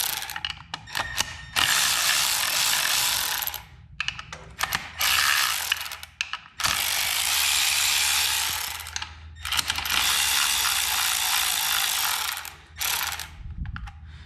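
Hand ratchet wrench clicking in about five runs of two to three seconds each, with short pauses between, as the 8 mm bolts of a motorcycle's front sprocket cover are backed out.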